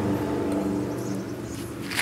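Steady low engine hum with several pitches, easing off slightly, and a sharp click near the end.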